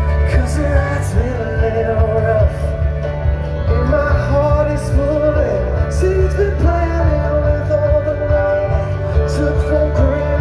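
Live rock band playing loudly, a voice singing over electric guitars, bass and drums with repeated cymbal hits.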